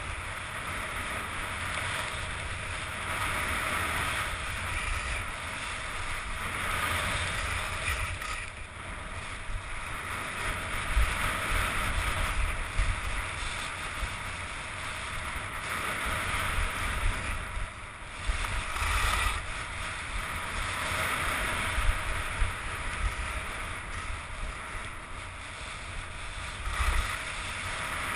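Skis hissing and scraping over packed snow on a downhill run, the hiss swelling and fading every few seconds with each turn. Wind rumbles on the microphone underneath.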